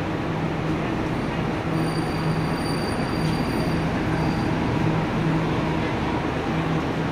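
Passenger train's coaches rolling slowly past as the train pulls into the station: a steady rumble of wheels on rail, with a faint high-pitched squeal for about two and a half seconds near the middle.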